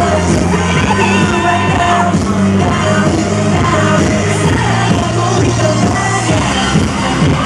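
Pop song with singing, played loud through a concert sound system over a steady bass line, with shouts from the audience.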